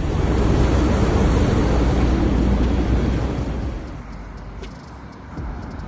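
Motor vehicle noise with a heavy low rumble, loud at first and fading after about three and a half seconds, with a few faint clicks after that.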